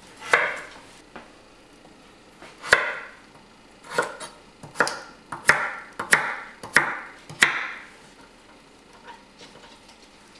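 Chef's knife chopping firm vegetables (sweet potato and acorn squash) on a wooden cutting board: about eight sharp chops, the later ones coming closer together, stopping about three-quarters of the way through.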